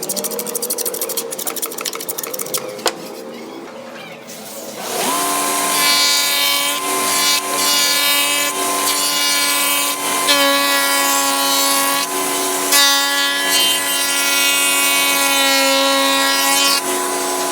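Woodworking power tool: fast scraping ticks on wood, then the motor starts about five seconds in and runs with a steady, loud whine that shifts slightly in pitch a few times as it works.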